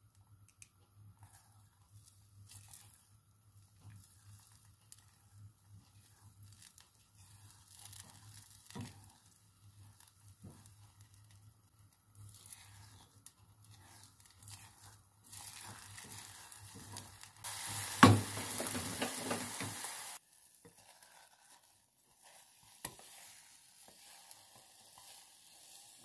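Eggs scrambling in a small nonstick saucepan over a gas flame: a silicone spatula stirring and scraping the pan with soft scattered clicks. Past the middle the sizzling grows louder for about five seconds, with one sharp knock, then stops suddenly.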